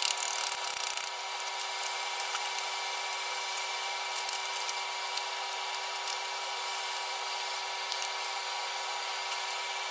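A brief rubbing scrape of a hand over steel tubing on a steel welding table in the first second, then scattered light clicks and taps as the square-tube pieces and magnetic welding squares are set and adjusted. A steady shop hum with a few fixed tones lies under it all.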